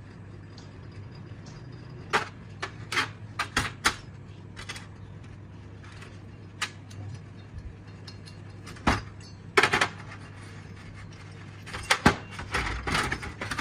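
Irregular sharp clicks, taps and clinks of small metal parts and tools being handled, in a few clusters, over a steady low hum.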